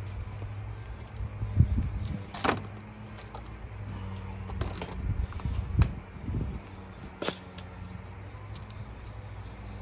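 Handling noises from work in an engine bay: a few separate clinks and knocks of tools and a compression tester being moved, the sharpest about seven seconds in, over a steady low hum. The engine is not cranking.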